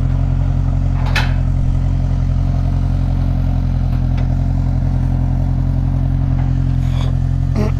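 Engine of a 2024 Can-Am side-by-side idling steadily, with a single brief clack about a second in.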